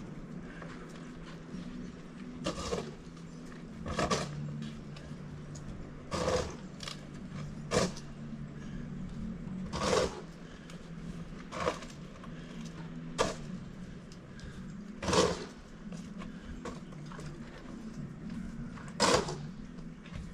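Snow shovel strokes: about nine separate scrapes and thumps at an irregular pace of one every second and a half to two seconds, over a steady low hum.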